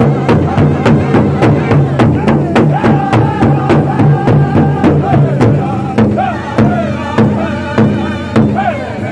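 Powwow drum group beating a large hide drum together in a fast, even beat, about four strokes a second, while singing high-pitched in unison: a chicken dance song. The drumming softens a little about six seconds in.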